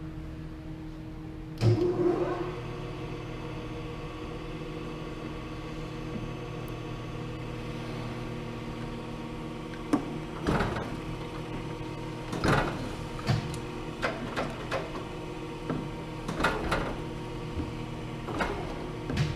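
Clausing (Chevalier-built) 10" x 20" hydraulic surface grinder running, with a steady hum from its motors and pump. There is a loud clunk about two seconds in, and a string of short, irregular knocks through the second half.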